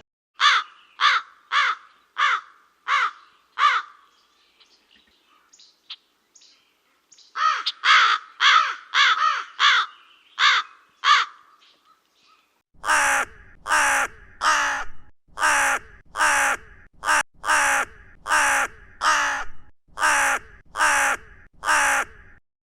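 A crow cawing: runs of short, harsh caws, about one and a half to two a second. There are three runs with brief pauses between them, and the last and longest run is over a low background rumble.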